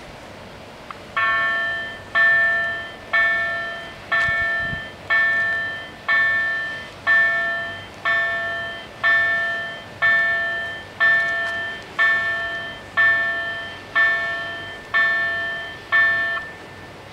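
Level-crossing warning bell ringing about once a second, sixteen strokes in all, each a bright ringing tone that fades before the next. It warns that the crossing is closing for an approaching train and stops once the barriers are down.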